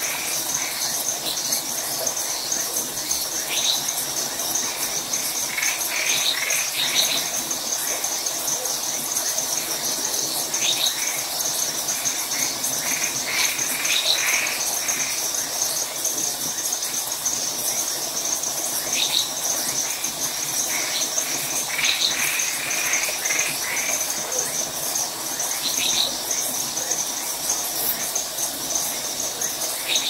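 Night chorus of crickets trilling steadily without a break. Frogs give short calls in clusters every few seconds over the trilling.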